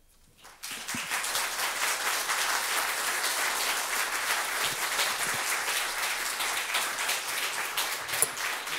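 Audience applauding, starting about half a second in after a brief hush and holding steady; a single sharp click near the end.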